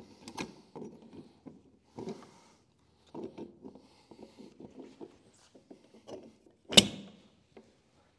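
Steel differential parts clinking and scraping as the mini spool gear is worked into the bottom of a G80 differential carrier, with one loud metal clank about seven seconds in.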